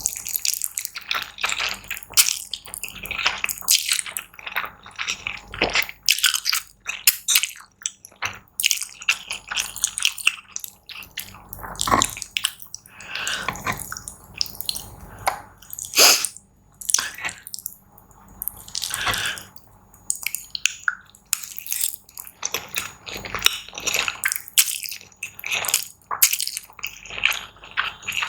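Close-miked eating: wet chewing and mouth smacks in an irregular run of short, sharp sounds.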